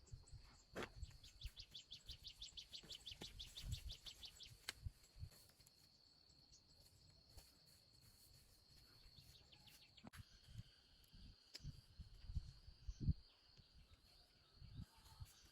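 Faint countryside ambience: insects keep up a steady high drone, with a rapid chirping trill for the first few seconds and a few soft low thumps scattered through.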